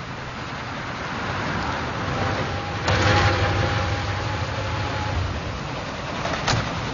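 Tatra 613's rear-mounted air-cooled V8 running as the car drives up and pulls to a stop, growing louder towards about three seconds in, with a thin steady squeal for a few seconds as it brakes. A car door shuts with a sharp knock near the end.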